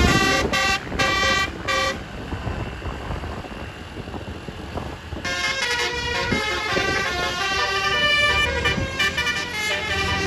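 Bus Basuri telolet horn playing a tune of short, stepping notes. It breaks off about two seconds in, leaving only background noise. A little after halfway it starts again with longer, changing notes.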